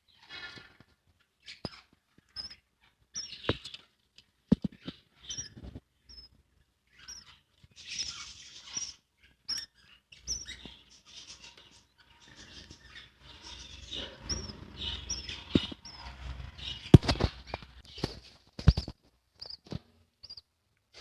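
Pet budgerigars chirping and chattering in short, high, scratchy calls, with scattered sharp clicks and knocks, the loudest about two-thirds of the way through.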